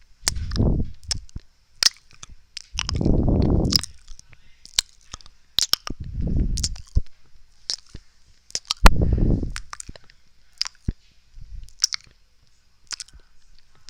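Close-miked ASMR mouth sounds: many quick, irregular wet clicks and pops, with four longer, lower squishy sounds of about a second each spread through.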